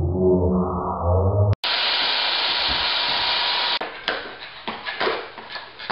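A brief muffled stretch of sound that cuts off suddenly, then a steady hiss, then a run of irregular clacks and knocks as a skateboard rolls on a concrete floor.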